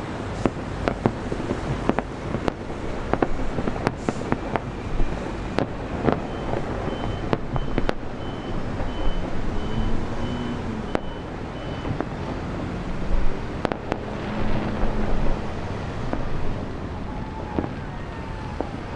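Fireworks bangs and pops, frequent for the first several seconds, then thinning to scattered single reports, over a steady outdoor crowd and traffic rumble. A faint high beep repeats evenly for several seconds midway.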